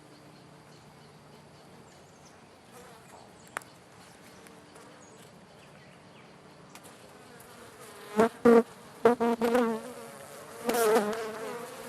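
Honey bees buzzing around an open hive, at first a faint steady hum. About eight seconds in, bees fly close past the microphone, and their buzz becomes much louder, swelling and fading as they pass. The colony is stirred up by the hive being worked.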